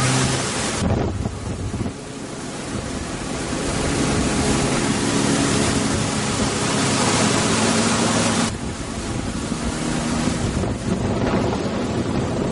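Wind buffeting the microphone and water rushing past a moving motorboat, with the boat's engine droning underneath. The mix shifts abruptly about a second in and again about eight and a half seconds in.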